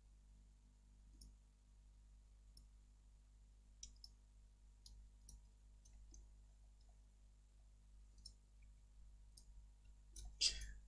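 Faint, scattered clicks of a computer mouse and keyboard being worked, roughly one every second, over near-silent room tone. Near the end comes a louder, brief noise.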